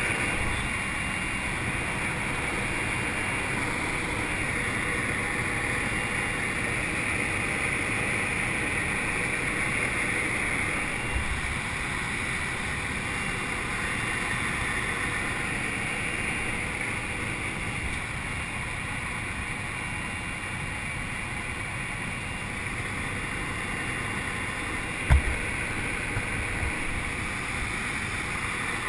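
Steady drone of a jump plane's engine and propeller heard from inside the cabin in flight, with one short low thump near the end.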